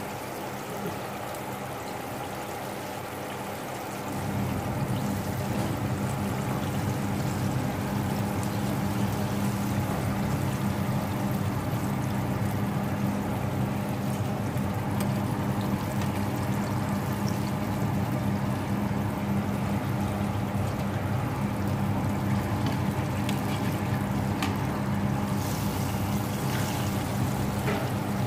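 Hot oil bubbling and sizzling steadily as breaded chicken pieces deep-fry in a pot. About four seconds in, a steady low hum joins, and there are a few short clicks near the end.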